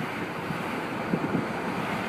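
Wind rushing over the microphone in an open-top convertible on the move: a steady rush with low, gusty buffeting a little after a second in.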